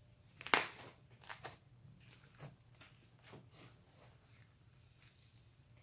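Foam-bead slime being stretched and pulled by hand, giving irregular sharp crackles and pops, the loudest about half a second in.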